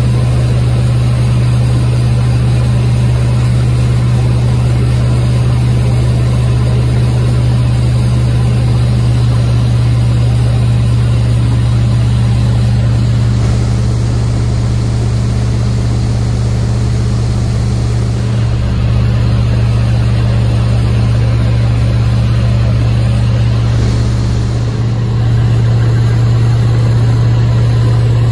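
Steady drone of the PJC-2 Harlow's piston engine and propeller heard from inside the cockpit in cruise flight, with a deep steady hum. The level dips slightly a few times and comes back.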